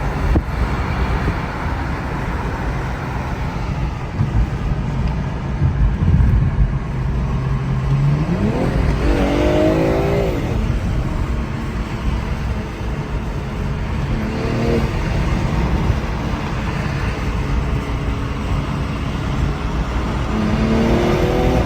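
BMW M340's engine running with a steady low rumble while under way. About eight seconds in it revs up sharply, and it climbs in revs again briefly a little later and near the end.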